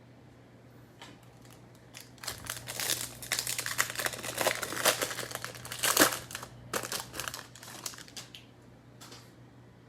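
Crinkling and tearing of a foil trading-card pack wrapper being torn open by hand, a dense run of crackles lasting about six seconds, loudest near the middle.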